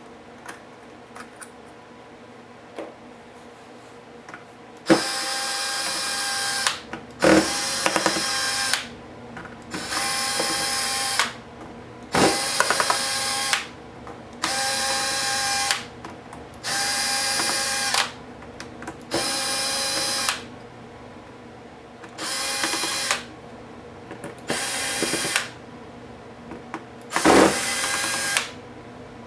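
Small cordless power driver running in short bursts, about ten runs of one to two seconds each with brief pauses, starting about five seconds in: backing screws out of the laptop's case. Faint clicks and ticks come before the first run.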